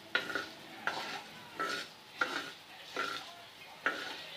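Whole spices being stirred with a spatula on a hot tawa while dry-roasting, in about six rhythmic scraping strokes, each with a short metallic ring.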